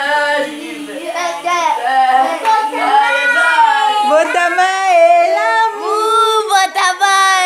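A group of voices, children and women, singing a birthday song together.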